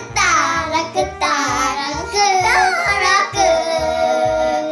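Upbeat background music with a steady beat, carrying a high singing voice.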